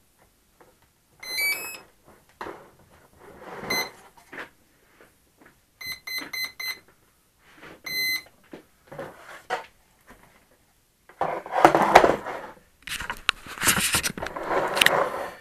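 RC flying wing's electronics beeping at power-up: a short rising run of tones, then a single beep, four quick beeps and a longer beep. Later, louder rustling and knocking as the foam wing is handled and moved.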